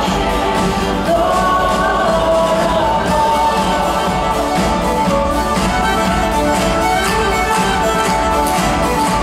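Live worship band with a string section playing a hymn, a violin line carrying the tune over drums, guitars and piano.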